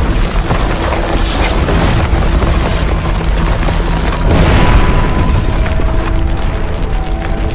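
Cinematic soundtrack music carried by deep, heavy booms and low rumble, with a swell of noise that rises and falls about four and a half seconds in.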